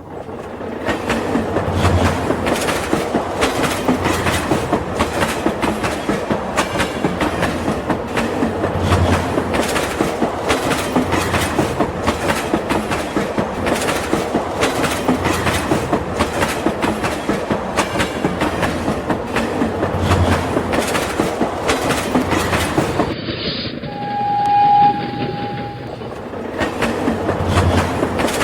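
Train wheels clattering steadily over the rails, with a low thud recurring every several seconds. About 24 seconds in, a short, single steady whistle tone sounds.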